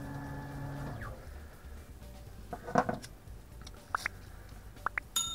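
A foil glasses-wipe packet being torn open by hand, a short rip a little past halfway through. A few sharp clicks follow, then a bell-like ding right at the end.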